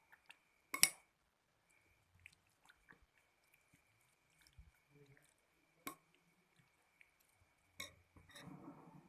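Quiet eating sounds from a bowl of chicken noodles: scattered clicks and taps, the sharpest about a second in, with chewing in between and a short rustle near the end. A faint steady high whine runs underneath.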